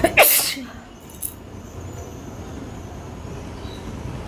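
A woman sneezing once, set off by tickling her nose with paper: a short voiced 'ha' that drops in pitch, then a loud hissing burst. A brief faint hiss follows about a second later.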